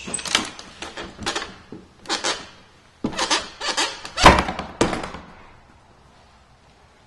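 A door being worked open: a run of knocks, rattles and thumps for about five seconds, the loudest a heavy thump about four seconds in.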